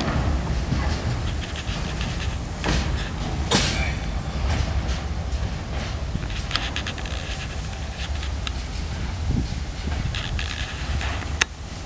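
Freight wagons rolling slowly over the rails during shunting, their wheels rumbling and clattering over the track, with scattered sharp clicks and knocks and one sharp click near the end. The rumble fades as the wagons move away.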